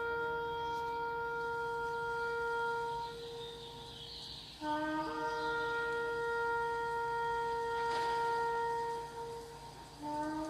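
Shofar (ram's horn) blown in long blasts. Each blast starts on a short lower note and breaks up to a long held higher note. One blast is already sounding at the start, a second comes about halfway through, and a third begins near the end.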